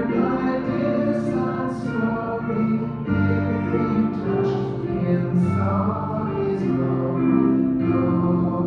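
Choral music: voices singing sustained chords over instrumental accompaniment, a slow worship song.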